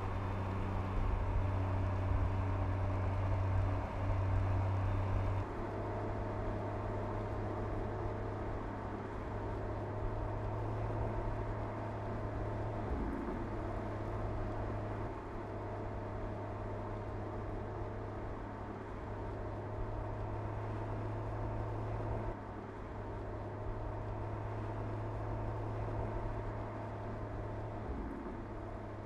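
Mercedes-AMG CLS 53's turbocharged inline-six running steadily at cruising speed, with tyre and road noise. The engine tone changes abruptly several times, as the sound jumps from one take to the next.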